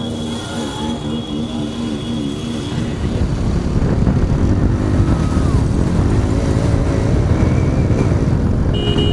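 A motor vehicle running, with a dense low rumble that grows louder about three seconds in. A wavering tone sounds over it in the first few seconds, and a short high beep comes near the end.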